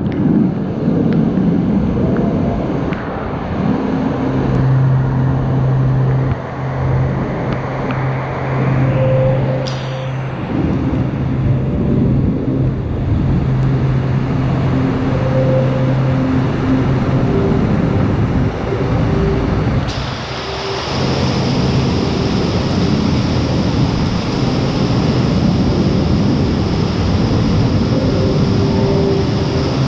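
Loud, steady rush of falling and splashing water, with a low steady hum that comes and goes over it. The sound changes character about two-thirds of the way through.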